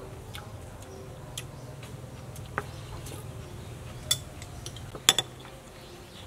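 Metal spoon clinking against a glass soup bowl: several scattered light clinks, the loudest a quick double about five seconds in.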